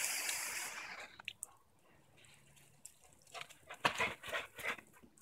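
Lawn sprinkler spray hissing close by for about the first second, then fading away. Near the end comes a quick run of short wet splashes and taps from a golden retriever dashing through the spray on the wet grass; these are the loudest sounds.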